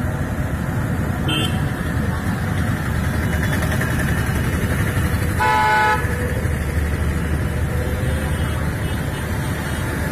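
Traffic on a flooded street, with tyres moving through standing water over a steady rush of noise. A car horn sounds once for about half a second a little past the middle. A short high beep comes about a second in.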